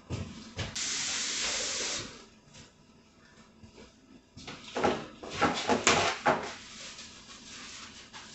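Kitchen sink faucet running for about a second, a steady hiss of water, then paper towels rustling with a few sharp, louder scrapes as hands are dried.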